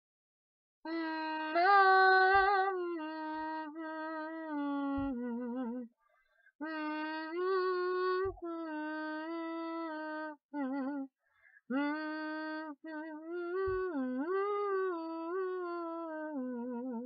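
A young female voice humming a slow, wordless melody in long held notes with a slight waver, in three phrases separated by short pauses.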